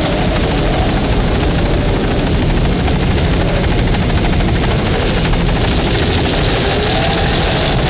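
Loud, steady engine and rotor noise of a helicopter flying overhead, its pitch wavering slightly up and down.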